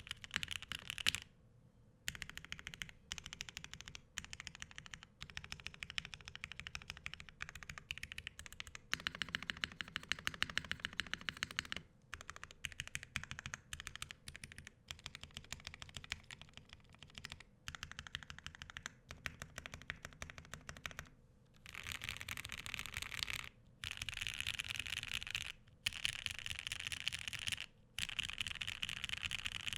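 Fast typing on a Ciel Bakeneko60 custom mechanical keyboard with Gateron Ink linear switches on an aluminum plate and GMK keycaps: dense runs of keystrokes broken by a few short pauses, most of them in the second half.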